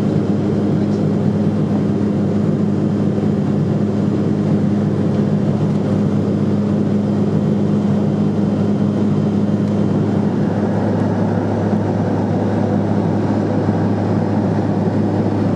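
Steady drone of a Cessna Silver Eagle 450's turboprop engine and propeller in cruise, heard from inside the pressurised cabin along with airflow hiss. One of its steady tones drops away about ten seconds in.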